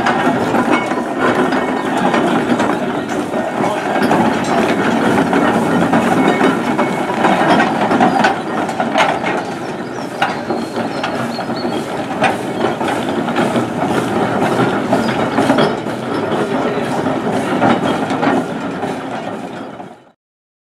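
Steam roller moving off slowly: a busy clattering and ticking of its motion and gearing over the rumble of the iron rolls. It gets quieter about eight seconds in and fades out just before the end.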